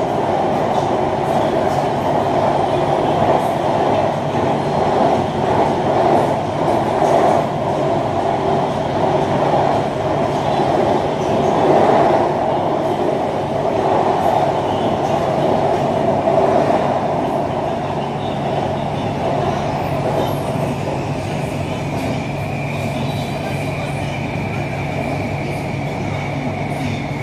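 BTS Skytrain electric metro train running at speed, heard from inside the carriage: a steady rumble of the car on the track. A steady low hum and a high whine join in during the second half.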